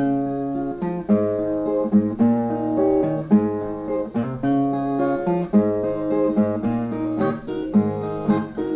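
Viola playing alone in an instrumental interlude: a picked melody of quick single notes over bass notes, with some strums.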